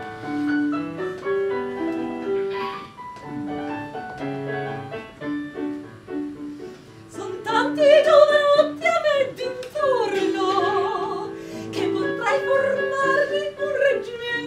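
Keyboard playing a lively piano-style tune, joined about seven seconds in by a woman singing in an operatic style with a wide vibrato over the accompaniment.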